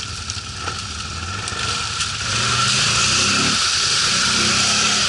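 ATV engine running and revving, with the pitch shifting up and down; the sound grows louder about two seconds in and stays loud.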